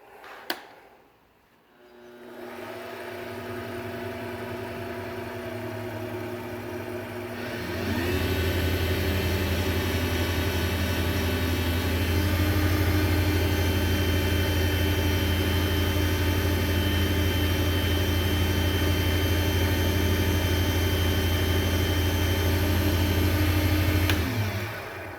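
WEN wood lathe motor starting up and running with a steady hum and whine, spinning the waxed acrylic pen blank for buffing. About eight seconds in the speed is turned up with a rising tone, and near the end the lathe is switched off and winds down.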